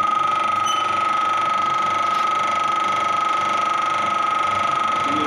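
Hydraulic pump of a DHR 2000 concrete compression testing machine running with a steady whine as it loads a concrete test cube.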